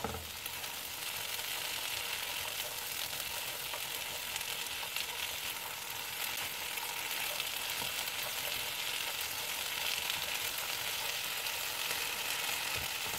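Green peas sautéing in a little oil in a kadhai on low flame: a steady sizzle, with a spatula stirring and scraping the peas around the pan.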